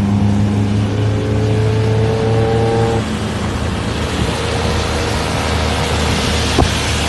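A car engine running under acceleration, its pitch rising slowly and then dropping suddenly about three seconds in.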